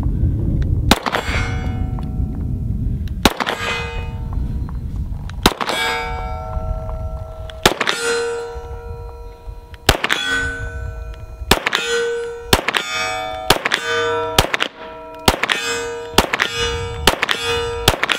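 Stoeger STR-9 9mm pistol firing at steel targets, each shot followed by the ringing clang of a hit steel plate. Spaced shots come about every two seconds at first, then a faster string of about two shots a second from about two-thirds of the way in.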